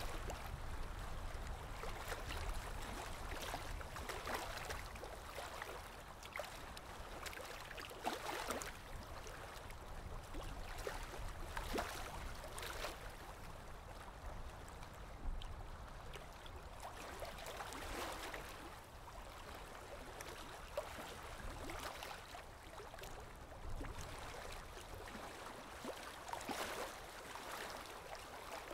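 Graphite pencil scratching on paper in a run of uneven drawing and shading strokes, with a sharper scrape every few seconds.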